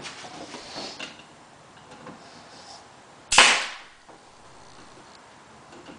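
Pneumatic staple gun firing once about three seconds in, a sharp shot that fades over about half a second, as it drives a staple into the wooden top. Fainter handling knocks come before it.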